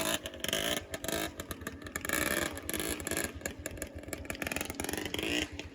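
A vehicle engine running with a steady low pulsing beat.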